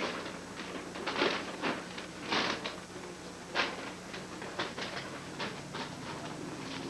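Irregular rustling and light knocks of a paper manual being handled and put away, with several louder rustles spread through, over a faint steady hum.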